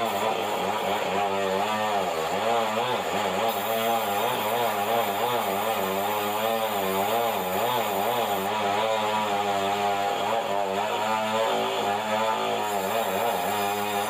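Sawmill band saw running and cutting red meranti timber, a steady machine drone whose pitch wavers up and down.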